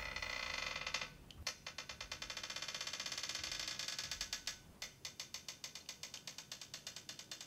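Floor jack being pumped up under a car, giving a rapid, even ratchet-like clicking of several clicks a second. The clicking pauses briefly about a second in and is more widely spaced after about four and a half seconds.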